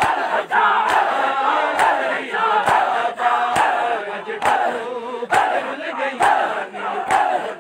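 A large crowd of men doing matam, beating their chests together in time, one sharp slap about every second, while many voices chant a noha lament in a loose chorus.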